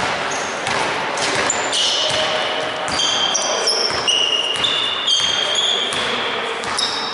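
Basketball game in a large hall: sneakers squeaking repeatedly on the court floor and the ball bouncing, with scattered players' voices.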